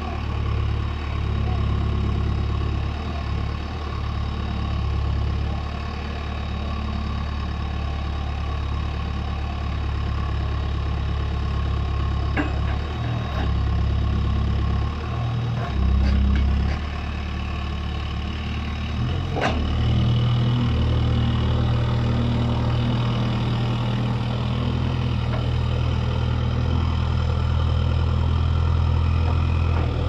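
Case 851EX backhoe loader's diesel engine running under load as the machine hauls itself up a steep dirt bank with its backhoe arm, its pitch and level shifting. A sharp clank comes about two-thirds of the way through, and the engine runs louder and a little higher after it.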